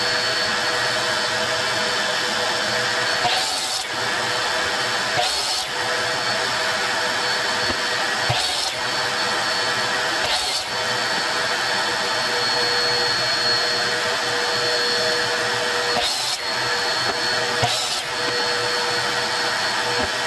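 A power-tool motor runs steadily with a constant whir, and about six light knocks sound as curly maple boards are set against a miter saw's fence.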